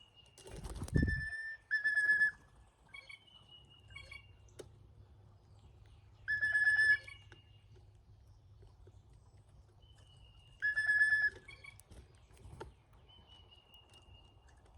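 Brown-headed cowbirds calling: thin, high whistles that slide slightly downward, mixed with louder, short steady-pitched notes repeated four times. A low thump comes about a second in.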